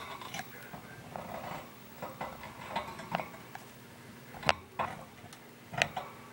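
Hiccups: two sharp hiccups a little over a second apart in the second half, each followed by a smaller catch, with softer short sounds before them.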